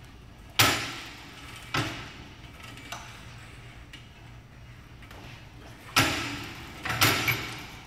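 Loud clanks from a plate-loaded weight bench's leg-extension attachment being moved and adjusted, each ringing out briefly: two in the first two seconds and two more near the end.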